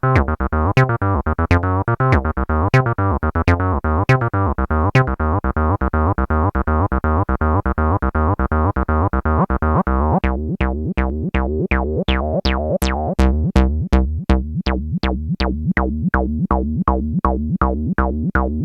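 Roland TB-03 bass synthesizer playing a looping sequenced bassline of short repeated notes, about four a second. About ten seconds in the tone changes, and each note gets a sharp, bright top that quickly falls away.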